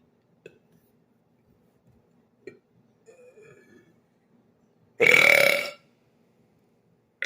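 A man's loud burp lasting under a second, about five seconds in, with a second burp starting at the very end. A few faint clicks come before it.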